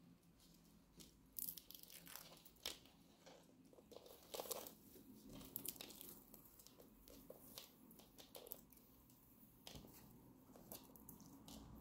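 Faint, scattered scratchy clicks and rustles, about a dozen of them at uneven intervals: a hand stroking the rough scales of an Argentine black-and-white tegu as it shifts on a laminate floor.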